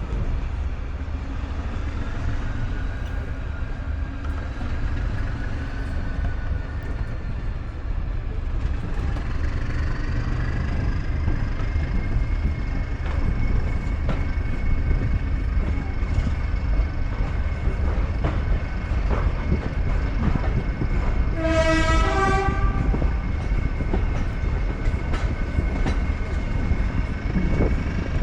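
Heritage train under way behind a Class 14 diesel-hydraulic locomotive: a steady low rumble with a whine that rises about a third of the way through as it picks up speed. About three-quarters of the way through, the locomotive's horn sounds once, briefly, stepping between two notes.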